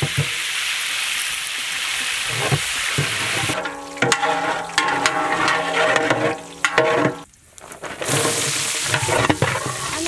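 Hot oil sizzling and frying in a large metal cooking pot while it is stirred. For a few seconds in the middle the sizzle thins to knocks with a brief near-silent gap. It comes back strong near the end, with sliced onions frying in the oil.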